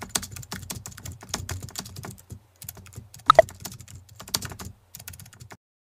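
Rapid, irregular clicking and tapping, with a brief squeak a little over three seconds in; the sound cuts off abruptly shortly before the end.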